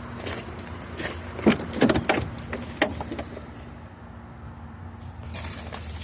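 Clicks and knocks from handling parts of a car's interior, bunched up about one and a half to two seconds in, over a steady low hum.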